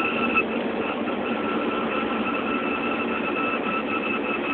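ATV (quad bike) engine running steadily on the move, with a steady high whine over the engine noise.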